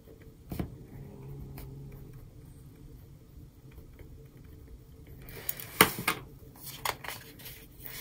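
A pen writing lightly on a paper sticker, with faint ticks. From about five seconds in, the glossy sticker sheet is handled and a sticker is peeled off, making loud irregular papery crackles and snaps.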